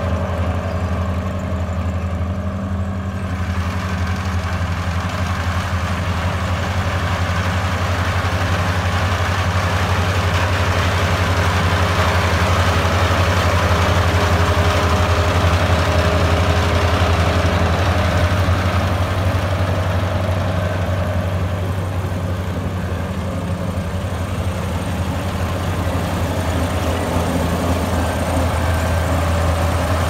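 Kubota SR40 combine harvester's diesel engine running steadily with a low drone while the machine cuts and threshes rice, with a broad mechanical rush from the harvesting machinery that swells a little around the middle.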